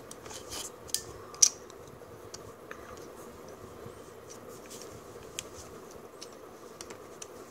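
Clicks and taps of a Nikon D5100 DSLR body being handled with gloved hands, with a sharp click about a second and a half in and a few faint ticks after it, over a faint steady hum.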